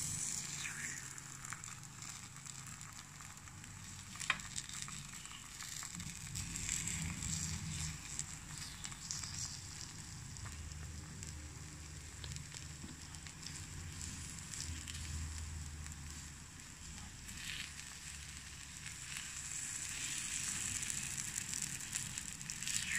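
Takoyaki batter sizzling and crackling in the hot wells of an electric takoyaki pan, with light scraping and clicks from a wooden skewer turning the balls, one sharp click about four seconds in.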